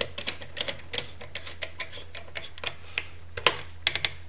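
Screwdriver turning the lock screw of a fuse-holder wire terminal, tightening it down. It makes an irregular run of sharp clicks over a low steady hum.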